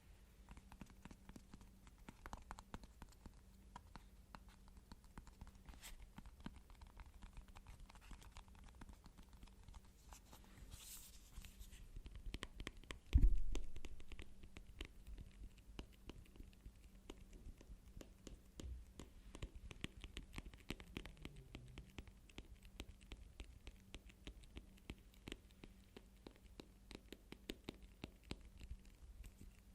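Fast, continuous tapping and scratching with the hands on objects: many quick light taps close together. One loud low thump about 13 seconds in.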